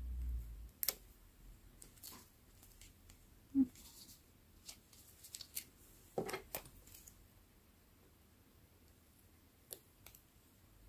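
Close handling of a small paper notebook and its stickers: a soft low thump at the start, then scattered light clicks, taps and paper rustles, with metal tweezers touching the page near the end.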